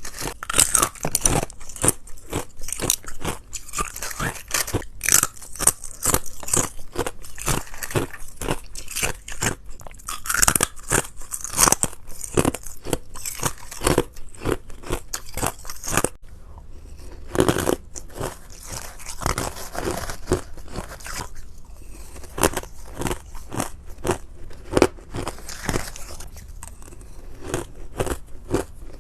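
Ice being bitten and chewed close to the microphone: a dense run of sharp, crisp crunches, one after another, with a brief lull about halfway through.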